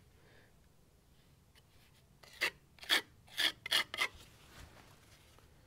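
Five short scraping strokes in quick succession, starting a little over two seconds in: masonry filler being scraped onto a concrete fence post.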